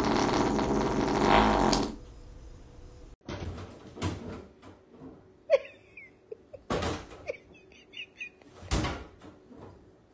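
A long, loud fart that stops abruptly about two seconds in. After a short pause comes a series of sharp knocks and clacks with a few faint squeaks, which fit a pet-door flap knocking in its frame.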